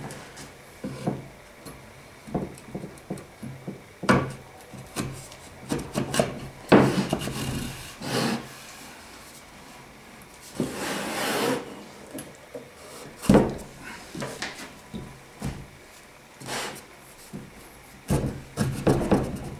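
Pine blocks of a wooden clamping jig knocking against the workbench and against each other, with steel rods scraping as they slide through the drilled holes. About ten seconds in, a longer scrape as a block is slid along the rods.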